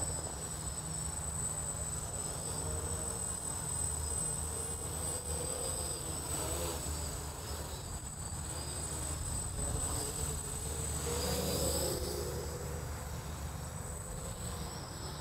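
Small electric AeroSky quadcopters buzzing in flight, their motors and propellers making a steady insect-like whine that wavers in pitch as the throttle changes.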